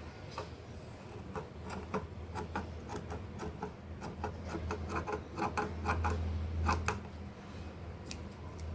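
Scissors snipping through a cloth strip, an irregular run of sharp clicks a few per second with light rustling, over a steady low hum.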